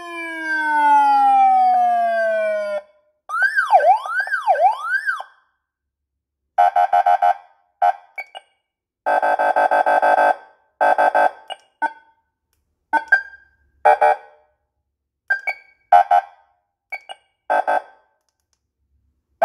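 A 20 W electronic motorcycle police siren stepping through its tones. First a falling wail that cuts off before three seconds in, then a quick up-and-down yelp for about two seconds, then a string of short, irregular buzzy horn blasts.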